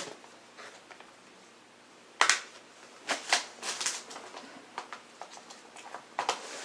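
Plastic Blu-ray cases being handled: a sharp click about two seconds in, a cluster of clicks and rustling a second later, and another click near the end.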